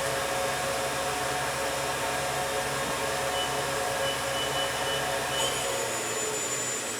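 Southwestern Industries Trak DPM bed mill spindle running at its top speed of 4,000 RPM, a steady machine whine with a low hum. The low hum drops away about six seconds in.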